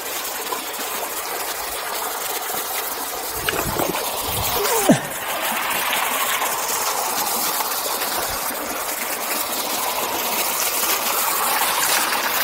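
Steady rush of water from a waterfall, building slightly over the stretch. A short falling tone cuts through about five seconds in.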